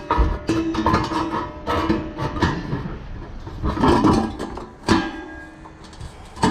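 Background music with plucked acoustic guitar.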